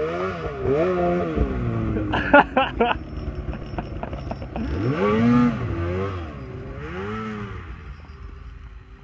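Snowmobile engine revving up and down in repeated bursts as it is worked through deep powder, with a quick run of sharp clattering knocks a little over two seconds in. The engine sound fades near the end as the sled pulls away.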